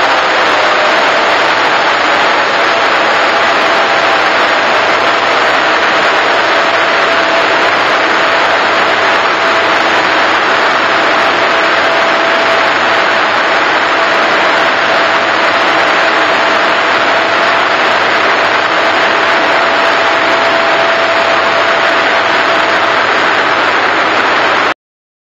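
Large dyno cooling fan blowing a steady, loud rush of air, with a steady mid-pitched whine that fades out near the end. The sound cuts off abruptly just before the end.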